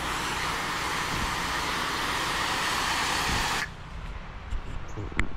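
Pressure washer spray from a wand hitting house siding: a loud, steady hiss that cuts off abruptly about three and a half seconds in as the trigger is released. A low hum carries on underneath, with a couple of sharp clicks near the end.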